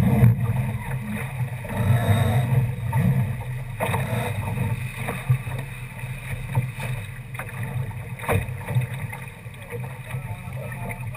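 Water rushing and splashing along the hull of a Mercury-class sailboat under way, with a few sharper slaps of waves against the hull.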